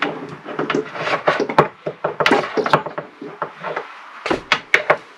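Wire strippers working on a cable and tools being handled and set down on a wooden surface: a string of irregular sharp clicks and knocks.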